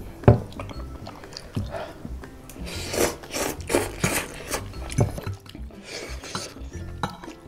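Close-up eating sounds of Shin Ramyun instant noodles: loud slurps in the middle and again later, with chewing between them. A sharp knock comes just after the start.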